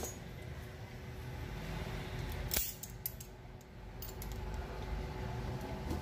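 Metal tools on a blender motor, locking pliers on the coupling and a wrench on the blade nut being tightened, making light metallic clicks and handling noise, with one sharp click about two and a half seconds in, over a low steady rumble.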